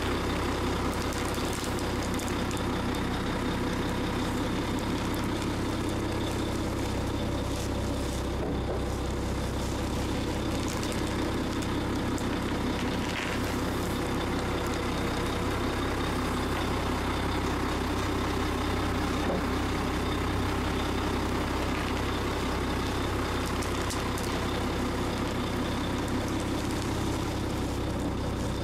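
Engine of a heavy wheeled machine with large lugged tyres running steadily at a low, even speed, with no clear crunch standing out.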